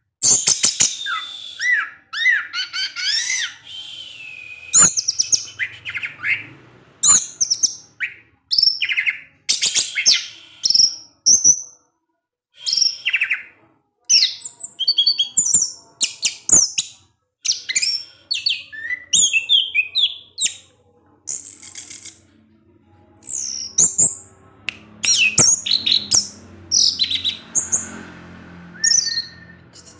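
Orange-headed thrush (anis merah) singing a long, varied song of short whistled and warbled phrases, one after another with brief pauses between them.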